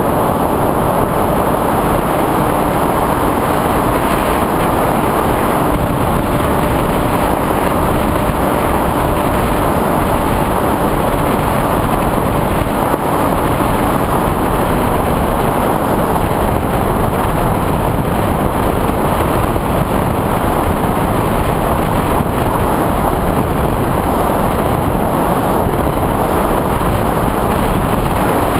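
FPV drone in flight: a steady, loud rushing of wind and propeller noise on its onboard camera's microphone, with a faint steady hum underneath.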